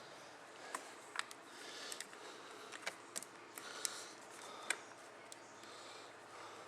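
Faint, irregular clicks and light rustling of small metal parts and a pocket screwdriver being worked loose by hand on a motorcycle handlebar control.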